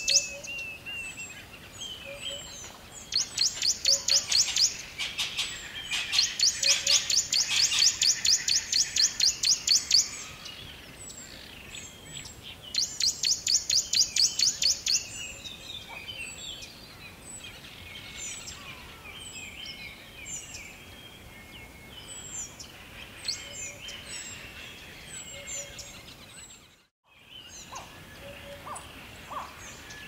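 Forest birds chirping and calling, with three bouts of a loud, fast, high-pitched pulsing call over scattered shorter chirps. The sound drops out for a moment near the end.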